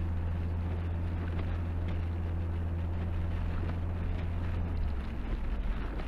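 Car driving on a snowy road: a steady low drone of the engine and tyres with road hiss. The drone drops lower about five seconds in.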